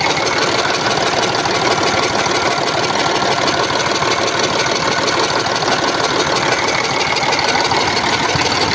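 Engine idling steadily with a knock running through it: a new knock of unknown cause.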